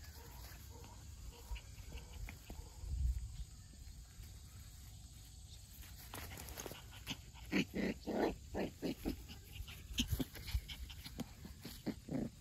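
Welsh Terrier puppies, six weeks old, making a series of short grunts and little growls. The sounds grow more frequent from about seven seconds in.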